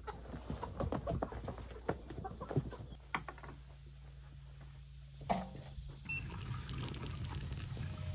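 A live chicken clucking and flapping as it is carried by the legs, with many short irregular sounds over the first three seconds. From about three seconds in, a steady low hum takes over, with an occasional knock.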